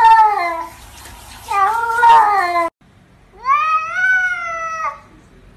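Cats meowing: two drawn-out meows that bend in pitch, then, after a brief break, a longer meow from a tabby cat that rises and then holds its pitch.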